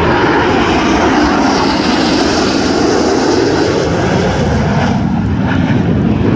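Blue Angels F/A-18 Super Hornet jets flying in a four-ship diamond formation, making loud, steady jet engine noise. The higher part of the sound dulls about five seconds in as the formation draws away.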